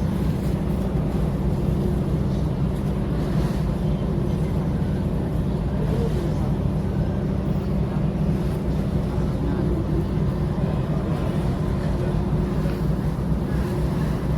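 Steady low drone of a passenger ferry's engines and hull, with a faint wash of wind and background noise over it.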